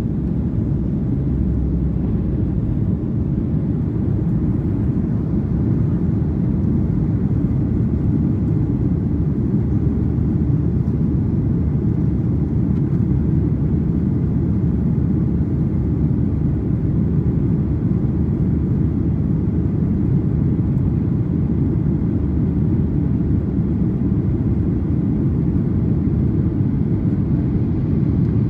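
Steady low rumble of engine and airflow noise heard inside the passenger cabin of a Boeing 737-800 airliner, even throughout with no changes.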